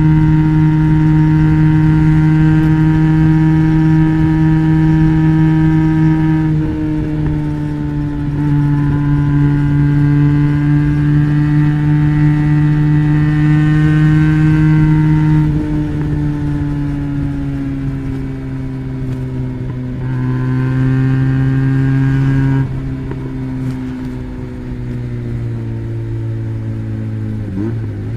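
Benelli BN302's parallel-twin engine running through an Arrow exhaust with the dB killer fitted, held at fairly steady revs with several abrupt steps in pitch and loudness, and the revs easing down near the end.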